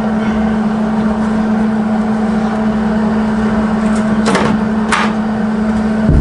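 A steady machine hum holding one constant low note over a noisy bed, with two short hissing sounds about four and five seconds in.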